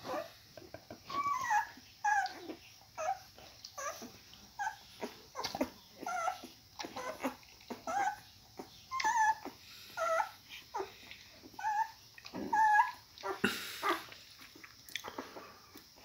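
Newborn puppies squeaking and whimpering while nursing: a steady run of short, high squeaks, some bending up and down in pitch, one or two a second. A brief rustle comes near the end.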